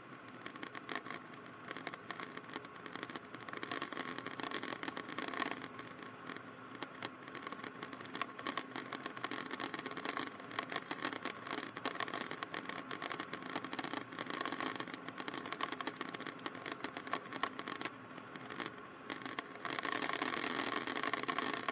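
Cessna 152 cabin noise heard through the headset intercom: a faint steady hum from the engine with irregular crackling clicks. It grows louder about two seconds before the end.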